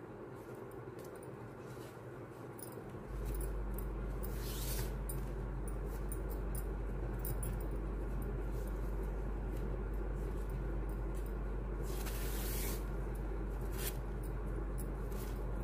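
Faint handling sounds of craft work, light clicks and a few brief rustles, over a steady low hum that comes on about three seconds in.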